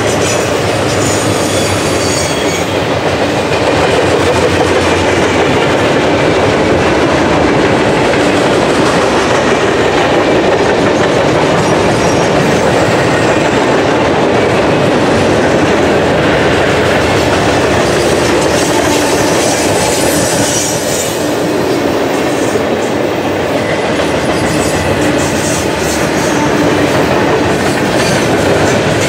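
Mixed freight train's cars (boxcars, covered hoppers and tank cars) rolling past: a steady, loud rumble with wheels clacking over the rail joints and brief high wheel squeals now and then.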